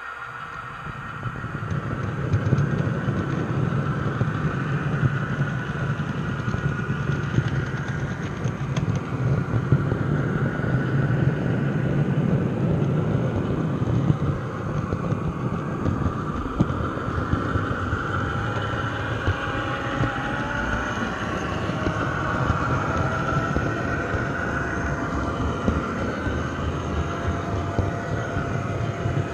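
Model train rolling along the track, heard from a camera car riding in the train: a steady rumble and rattle of wheels on rails that builds up over the first couple of seconds as the train gets going. A thin rising squeal comes in about two-thirds of the way through.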